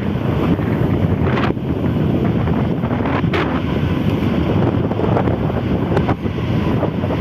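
Strong wind buffeting the microphone: a loud, steady rumble with brief sharper gusts about one and a half and three seconds in.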